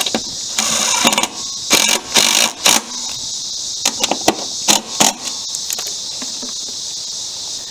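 Ratchet wrench clicking in four short bursts of rapid ratcheting while tightening the bolts of a lawnmower's belt cover. A steady high chirring of crickets or insects runs underneath.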